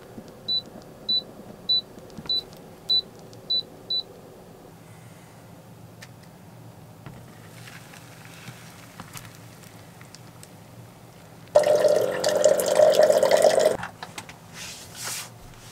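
Seven short, high electronic beeps, evenly spaced about half a second apart. About eleven and a half seconds in, a louder rushing noise with a steady hum in it lasts about two seconds and stops abruptly.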